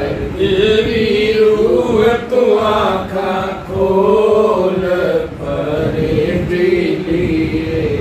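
A man singing a Hindi devotional hymn in a chanting style, holding long notes that rise and fall in pitch, with a few short breaks for breath between phrases.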